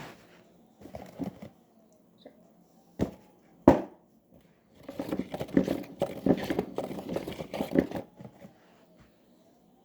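Washing machine running: a faint motor whine rises and falls over and over as the drum turns. Two sharp knocks come about three seconds in, then a few seconds of rustling and crackling.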